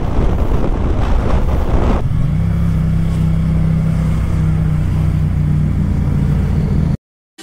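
Riding a motorcycle: heavy wind rush on the microphone. About two seconds in, a cut leads to a steady, low engine hum at even revs, which stops abruptly near the end.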